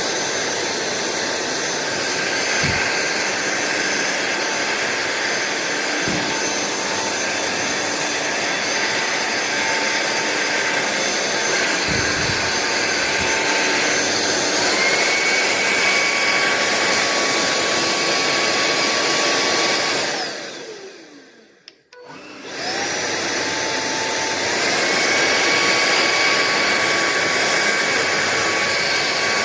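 Sulean X8 cordless stick vacuum running with a steady whine, with a few low knocks in the first half. About two-thirds of the way through, its motor winds down to near silence, then starts again and spins back up to full speed.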